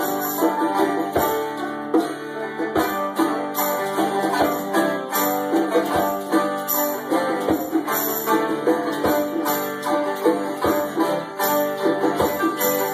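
Acoustic string band playing a tune: banjo leading over fiddle and acoustic guitar, with a hand drum rimmed with jingles keeping a steady beat.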